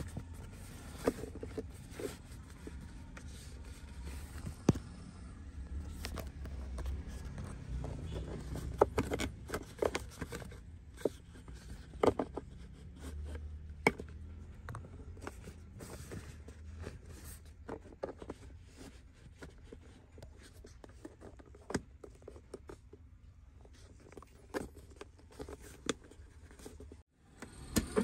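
Rustling and scraping of a car's handbrake boot being worked by hand around the handbrake lever, with scattered light clicks and taps against the console trim.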